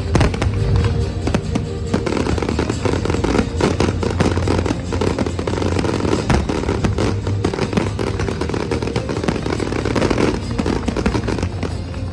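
Fireworks bursting in quick succession, with many bangs and crackles, over loud music for a fireworks display set to music.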